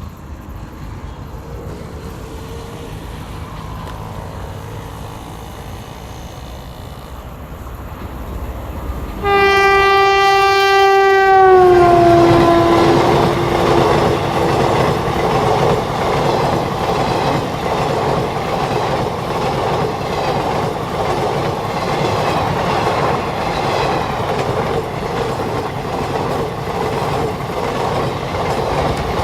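A WAP-4 electric locomotive approaches with a growing rumble, then sounds one loud air-horn blast about nine seconds in. The horn's pitch drops as the locomotive passes (Doppler shift). The express coaches then rush by with steady rumbling and wheel clatter over the rail joints.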